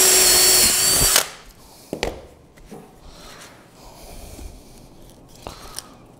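Cordless drill running at a steady speed with a pitched whine, stopping about a second in. A sharp knock follows about a second later, then only faint handling noise.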